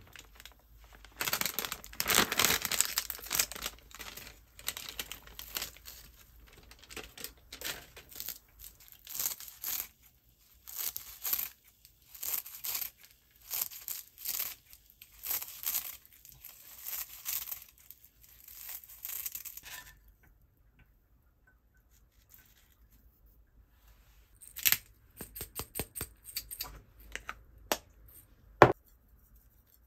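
Crinkly plastic packet of seasoned laver (gim) being torn open and rustled, and the crisp laver sheets being snipped with scissors, in repeated bursts. After a quiet pause, a quick run of sharp clicks and one louder knock near the end.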